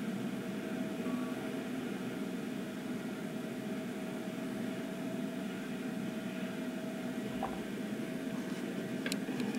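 Steady road and engine noise inside a van driving along a highway: an even low rumble with a faint hum. Two short clicks near the end.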